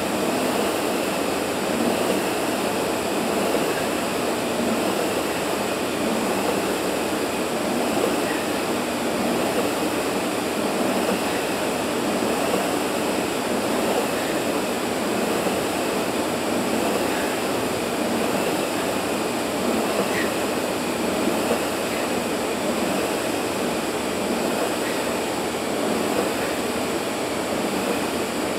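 Steady rushing noise of a large fan running, with no rhythm of strokes and no change in level.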